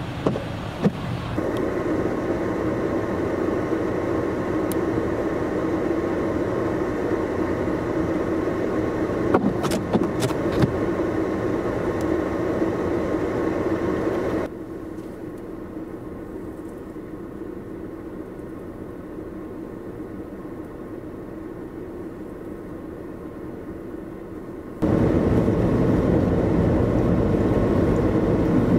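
Steady engine hum of diesel semi trucks idling in the snow, with a few sharp knocks about ten seconds in. It then drops to a quieter, duller hum, and near the end cuts to a louder, even rumble of engine and tyre noise from a vehicle driving on a snow-covered highway.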